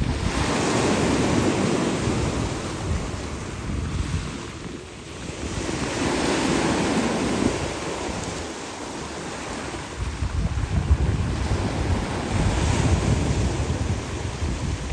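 Black Sea surf breaking and washing up a pebble beach, swelling and falling back every few seconds. Wind rumbles on the microphone, gustier in the second half.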